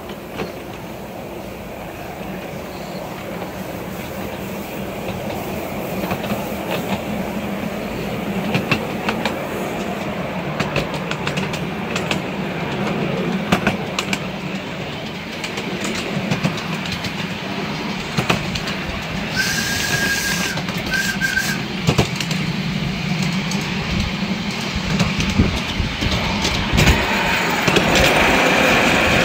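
Miniature live-steam passenger train running on its track, heard from one of its coaches: a steady rumble of wheels on rail with frequent sharp clicks over the rail joints. Two short high-pitched tones sound about two-thirds of the way through, and the running gets louder near the end.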